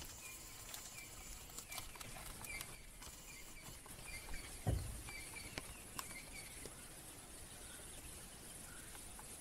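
Faint bush ambience with a bird repeating short high chirps, scattered light clicks, and one low thump about five seconds in.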